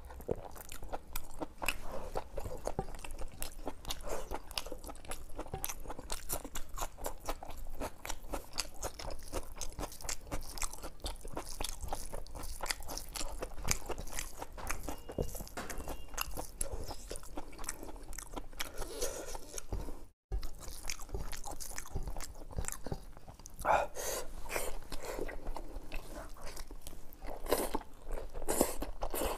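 Close-up chewing and eating sounds of a person eating mutton curry and khichdi with the hand: steady wet chewing, lip smacks and crunches packed closely together, with a few louder smacks near the end. The sound cuts out for a moment about two-thirds of the way through.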